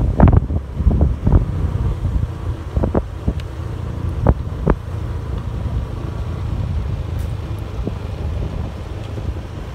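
Wind buffeting the microphone on a moving motorbike, over the bike's steady low engine hum, with short gusty thumps every second or so in the first half and now and then after.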